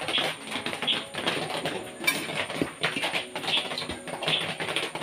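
Dough being patted by hand and then rolled with a rolling pin on a stainless steel plate, with light knocks and rubbing and one sharp click about two seconds in. Birds chirp in short bursts in the background.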